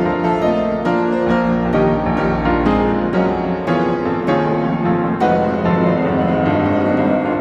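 Background piano music, with notes struck at an even, unhurried pace.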